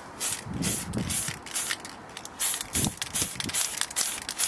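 Aerosol can of silver spray paint hissing in short, quick bursts, about two or three a second, as a silver backing coat goes onto the inside of a polycarbonate RC car shell.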